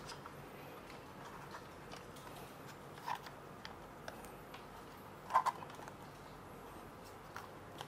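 Light clicks and taps of the smart lock's parts being handled and fitted against the door, with two brief, louder knocks about three and five and a half seconds in.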